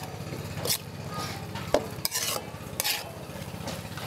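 Metal ladle scraping and clinking against an aluminium wok as leafy greens and egg are stirred, several strokes over a light frying sizzle.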